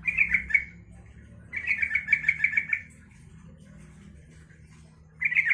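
Yellow-vented bulbul (trucukan) singing in three bursts of quick repeated notes. The longest burst comes about a second and a half in, and a short one comes near the end.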